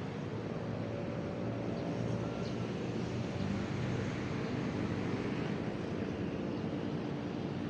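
Steady rumble of road traffic, engines running, with a few faint short high chirps.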